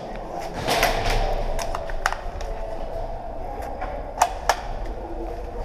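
Scattered sharp clicks and knocks over steady background noise, with a quick cluster about a second in and two sharp cracks a little past four seconds.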